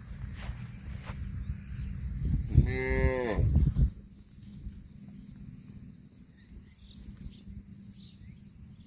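A cow moos once, about two and a half seconds in, in a single call of about a second and a half whose pitch rises and then falls. A low rumble runs under it and stops as the moo ends.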